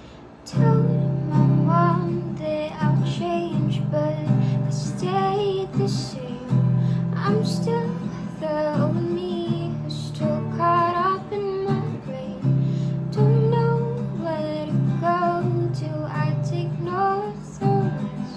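A female voice singing a song over strummed guitar chords, starting about half a second in.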